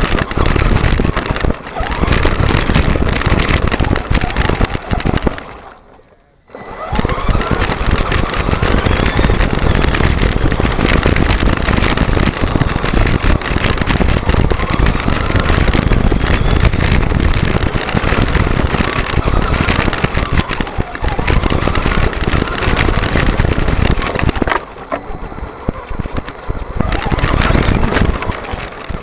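Loud onboard noise of a Traxxas Telluride 4x4 RC truck driving over gravel: tyres and chassis rattling on loose stones, with the motor's whine rising and falling with speed. It cuts out briefly about six seconds in and is quieter for a couple of seconds near the end.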